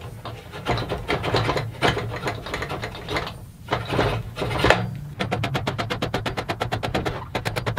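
Metal round bar of an Alaskan chainsaw mill sliding and scraping through its end brackets, with irregular clicks and knocks. About five seconds in, a ratchet wrench starts clicking rapidly and evenly as the bolts holding the bar are tightened.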